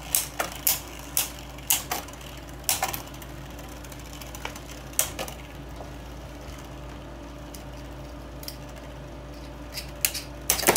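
Beyblade Burst Turbo tops Brutal Lúinor and Geist Fafnir spinning in a plastic Beystadium, knocking together with sharp plastic clacks. The clacks come several a second for the first three seconds, then only now and then, and bunch up again near the end.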